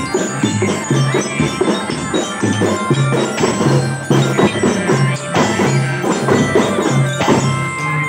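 Children's marching drum band playing: drums beating a steady rhythm under a melody carried by bell-like bellyra (marching lyre glockenspiel) notes and reedy sustained tones.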